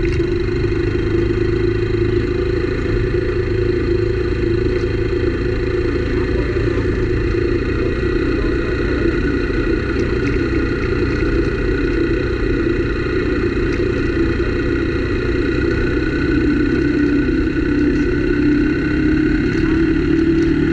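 Motorcycle engine running at a steady road speed, with wind rumble on the microphone.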